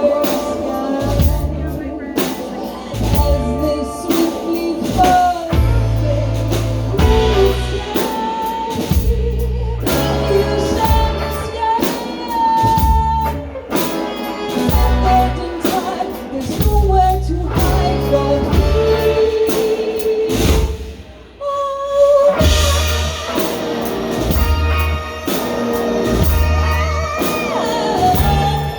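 Band music with a singer over drum kit and bass, with a brief drop in loudness about two-thirds of the way through.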